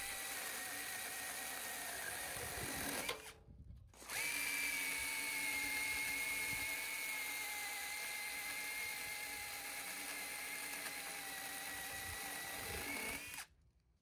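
A 21 V cordless electric chainsaw's motor running with a steady high whine. It cuts out briefly about three seconds in, starts again a second later, and stops just before the end.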